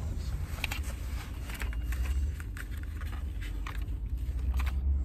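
Low, steady rumble inside a car, with scattered short clicks and rustles from a cardboard box being handled.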